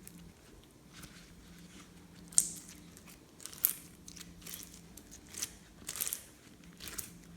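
Glossy slime being worked by hand, giving short, irregular sticky crackles and pops of trapped air, roughly one a second, over a faint low hum.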